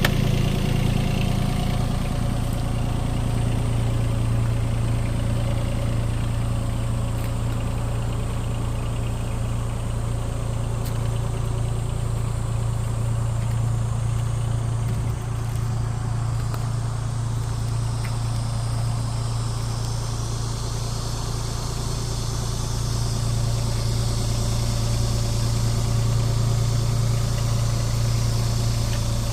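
Yanmar ViO20 mini excavator's diesel engine running steadily, with a strong low, even hum.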